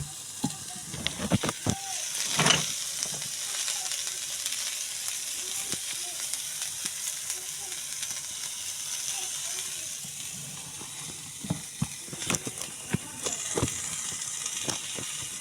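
Potatoes and peas sizzling in hot oil in a pan, a steady hiss, while a spoon stirs and knocks against the pan now and then, loudest about two and a half seconds in and in a cluster near the end.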